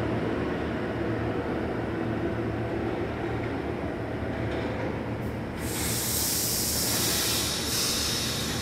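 New York City subway train pulling out of the station, its wheels and motors rumbling steadily on the track. About five and a half seconds in, a loud high hiss starts and carries on.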